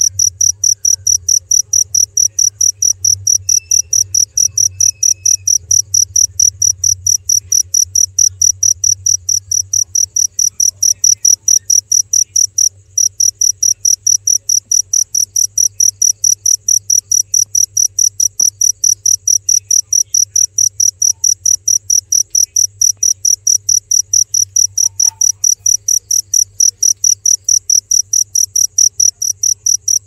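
A cricket chirping loud and close in a fast, even pulse, several high chirps a second, with one brief break about halfway through. A faint low hum runs underneath.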